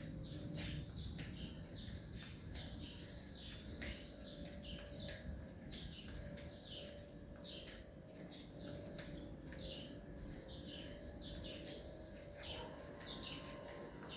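Birds chirping with many short, quick calls, and a thin high note repeated about every second and a half through the middle. A faint steady low rumble sits beneath.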